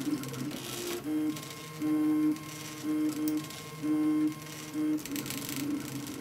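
RepRap Mendel 3D printer printing, its stepper motors whining in short pitched tones that change with each move. Louder bursts come about once a second between quieter running. The print is being driven with Skeinforge set to a 100 mm/s feed rate.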